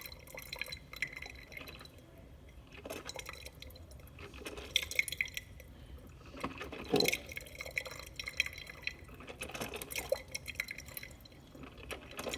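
Drip coffee maker running a cycle: water dripping and trickling into the glass carafe in irregular spells, a few seconds apart.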